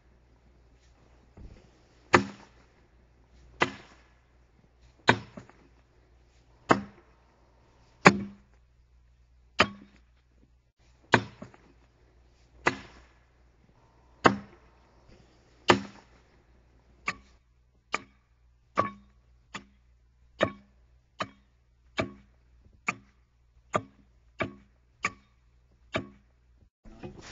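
Hand axe blows striking an oak log as a railroad tie is hacked out. The chops land steadily about every second and a half, then for the last ten seconds come quicker and a little lighter, about one every eight-tenths of a second.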